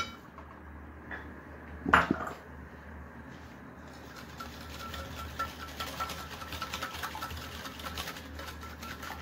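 Wire hand whisk beating a thin milk-and-yogurt mixture in a glass bowl, its wires clinking against the glass. Two sharp clinks come at the start and about two seconds in, then from about four seconds in the whisking turns to a fast, steady run of small ticks.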